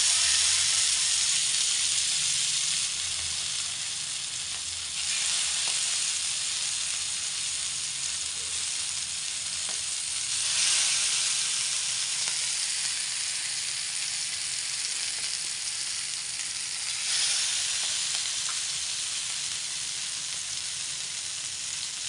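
Hot oil sizzling in a shallow iron pan as masala-coated fish fry over a low flame. The sizzle flares up each time another fish is laid into the oil, four times, and settles to a steady hiss in between.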